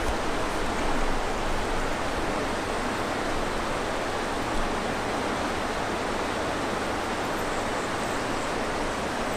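River water rushing over falls and rapids: a steady, even rush with no breaks.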